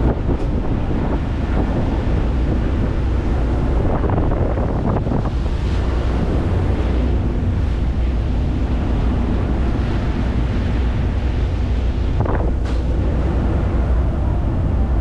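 Ferry running at sea: a steady low engine drone under the wash of water, with wind buffeting the microphone.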